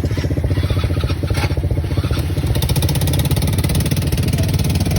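ATV (quad bike) engine running steadily with an even, rapid pulsing beat.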